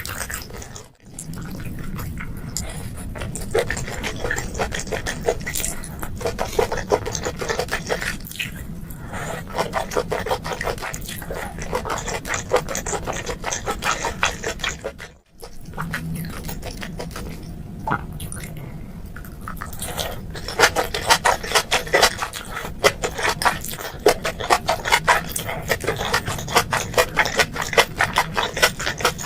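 Close-miked wet chewing and mouth smacking of boiled seafood and enoki mushrooms: a dense run of quick wet clicks and squelches that grows louder and busier in the last third, broken by two brief dropouts.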